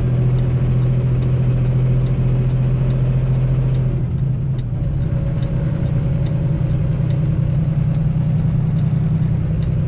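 Semi truck's diesel engine running steadily in seventh gear, its note changing slightly about four seconds in.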